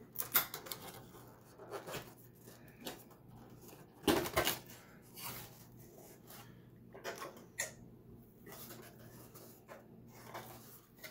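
Cardboard box being opened by hand: the top flaps and tabs pulled loose and the card insert handled, in scattered scrapes, rustles and small clicks, the loudest at about four seconds.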